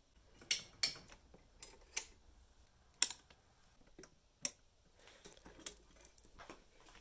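Half a dozen sharp, light clicks and taps at irregular intervals of about a second, with faint soft ticking and rustling near the end.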